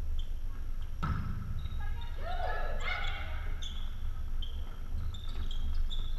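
Volleyball players shouting short, high-pitched calls to each other during a rally in a gymnasium, with a sharp hit of the ball about a second in.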